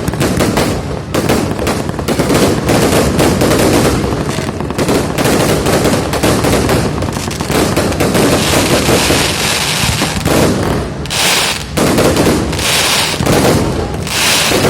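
Fireworks going off in a dense, continuous barrage of rapid cracks and bangs, with crackling hisses in the second half.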